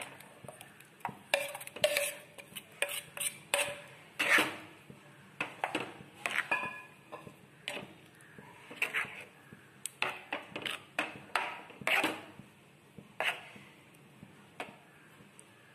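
A spoon knocking and scraping against a cooking pot, irregular clinks, some ringing briefly, as a ground curd mixture is poured and stirred into cooked ash gourd for mor kuzhambu.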